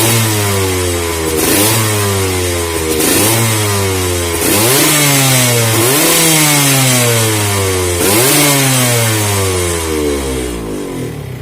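Suzuki RGR150 single-cylinder two-stroke motorcycle engine being revved in repeated quick throttle blips. Each blip jumps sharply up in pitch and then falls back, roughly every one and a half seconds, and the revving dies away near the end.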